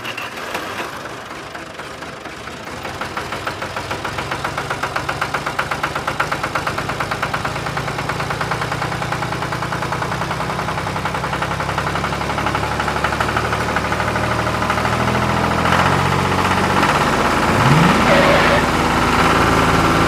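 Tractor diesel engine running with a fast, steady knocking beat, about four beats a second, growing louder over the first few seconds.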